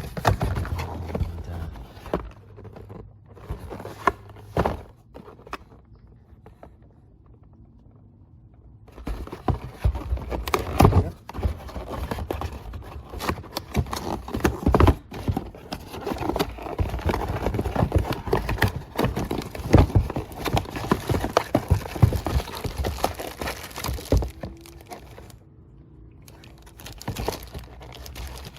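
Packaging rustling and crinkling, with scattered knocks and clicks, as new ignition coils and spark plugs are handled and unpacked. It is quieter for a few seconds, then becomes a dense run of crinkling and clicks for most of the rest.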